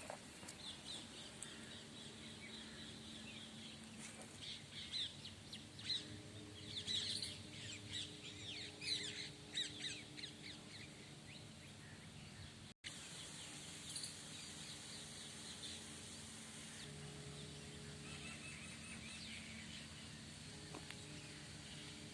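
Several small birds chirping and calling in quick, overlapping bursts, busiest in the first half and sparser after a momentary break in the sound about halfway through, over a faint steady low hum.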